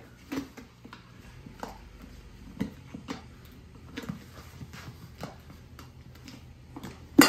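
Flathead screwdriver prying a wheelbarrow tire's bead off its rim: scattered small clicks, taps and scrapes as the tool is worked along, with one sharp, loud clack near the end.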